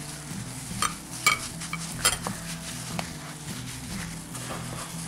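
Gloved hands mixing and mashing spiced potato samosa filling in a bowl: soft squelching and rubbing, with a few light clinks against the bowl, over a low steady hum.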